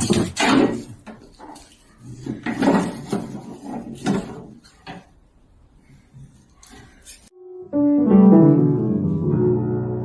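Several loud, rough bursts of noise in the first half, then piano music coming in about three-quarters of the way through.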